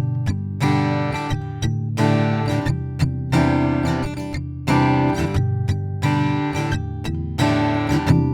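Taylor 324e grand auditorium acoustic guitar, with a mahogany top and Tasmanian blackwood back and sides, strummed in chords, each one left ringing. It is heard through its Expression System 2 pickup alone, with the tone knobs flat and no EQ.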